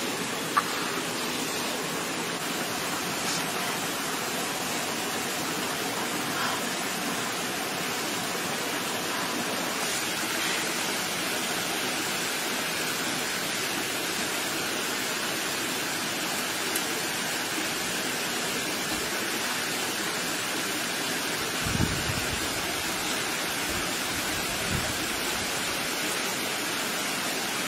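Steady rush of a stream flowing over rocks, with a couple of brief knocks near the start and about two-thirds of the way in.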